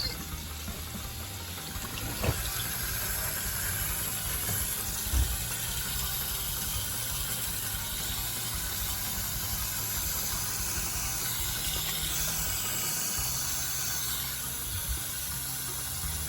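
Water running into a Hitachi drum-type washing machine through its water inlet valve, a steady rush with two short knocks about two and five seconds in.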